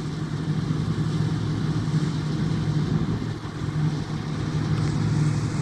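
Engine of heavy farm machinery running steadily: a low, even drone that does not change.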